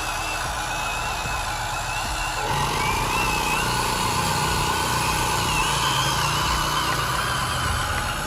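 Radio-controlled model construction vehicle's small electric motors and gearing whining, the pitch wavering up and down. About two and a half seconds in the motors work harder and the sound gets louder and fuller.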